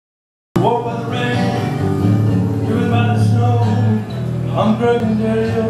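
Live band music with a man singing over guitar, cutting in suddenly about half a second in.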